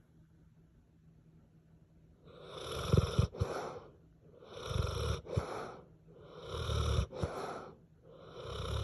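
A French Mastiff–Pit Bull mix dog snoring. After about two seconds of quiet come four snores about two seconds apart, each a long breath followed by a short second puff.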